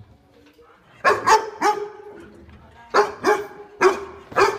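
A dog barking in short, sharp barks: three in quick succession about a second in, then four more spaced out from about three seconds in.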